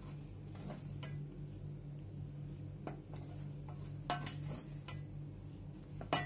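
A few light clinks and knocks of metal on a steel plate, scattered and irregular, the loudest near the end, over a steady low hum.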